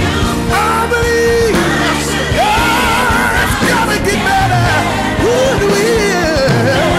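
Gospel song playing: a lead singer belts long, wavering notes that slide up and down over the band.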